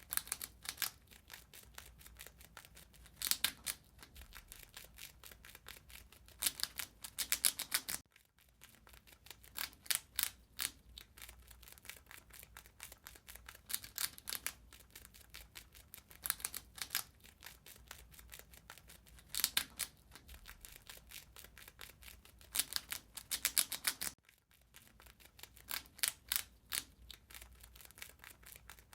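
A rat gnawing and chewing: rapid, crisp nibbling clicks with louder crunching bursts every few seconds.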